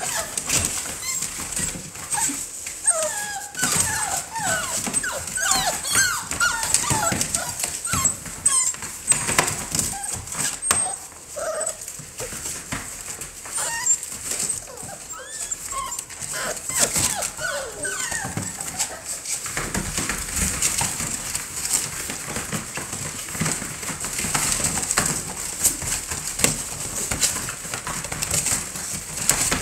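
American Bully puppies whimpering, many short high whines that bend up and down, thickest in the first half and again around the middle. Under them, paws scrabbling and wood shavings rustling on the plastic pool floor.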